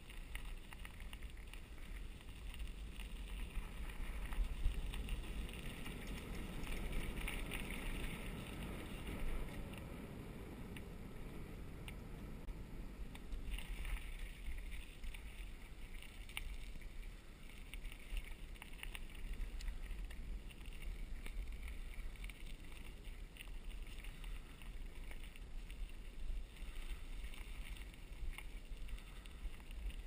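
Bicycle riding along a paved path: steady tyre rumble and wind on the microphone, with scattered small ticks and rattles from the bike.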